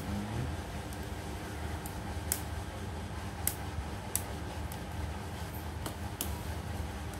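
Sharp plastic clicks, about half a dozen spread irregularly, as the keyboard of an Asus X441BA laptop is prised loose from the latches of its top case, over a steady low hum.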